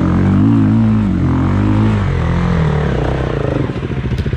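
Dirt bike engine revving, its pitch rising and falling, then dropping about three and a half seconds in to an even, low-rpm pulsing chug.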